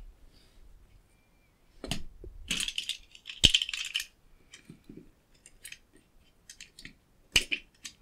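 A knife scraping and cutting through the outer sheath of a mains flex, with scattered scratchy clicks. Two sharp clicks stand out, about three and a half and seven and a half seconds in.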